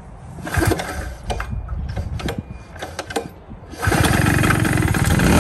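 TOGO Power GG1000 two-stroke gas generator being pull-started. Its recoil starter gives a few short rattles and knocks, then about four seconds in the engine catches and keeps running steadily, much louder.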